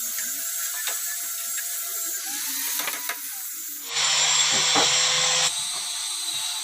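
A power tool running steadily with a high-pitched whine, with a few sharp clicks. It gets abruptly louder about four seconds in for a second and a half, then drops back.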